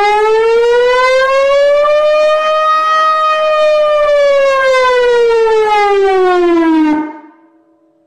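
Civil defence siren sounding a danger alarm: one slow wail that rises in pitch, then falls, and cuts off about seven seconds in.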